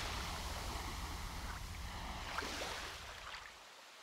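Rushing-water sound effect, like a wave washing through, that fades out about three and a half seconds in, with a few faint blips along the way.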